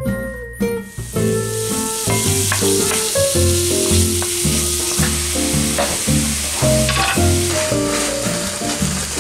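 Ground sausage sizzling in a hot cast-iron skillet, the frying starting about a second in, with a wooden spatula scraping as it breaks up the meat. Background music plays throughout.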